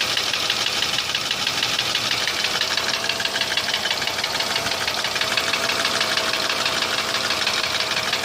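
Mercedes-Benz ML320 (W163) 3.2-litre V6 running steadily with a fast, continuous ticking knock, which the owner says began after an oil change.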